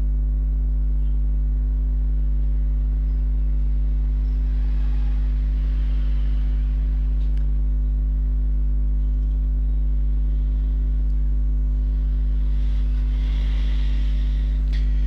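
Steady electrical mains hum: a low, even buzz with a ladder of higher overtones that never changes. Faint background noise swells up twice beneath it.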